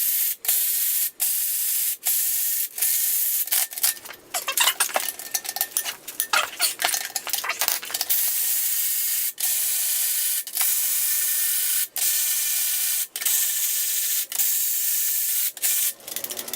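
Socket ratchet spinning loosened cylinder head bolts out of a Honda B20 engine, a rapid fine clicking broken by short pauses about once a second as the handle is stroked back and forth, rougher and more uneven for a few seconds in the middle.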